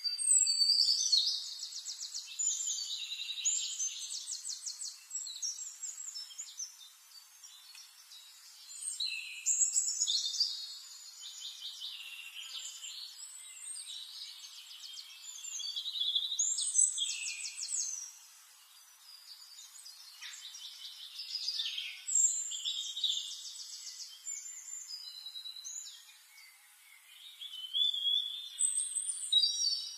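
Songbirds singing: quick, high trilling songs in bouts of a second or two, one after another every few seconds.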